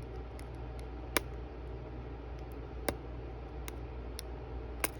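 Small, sharp clicks of repair tools on an iPhone's parts as the screen is taken off, about six of them at uneven intervals, over a steady low hum.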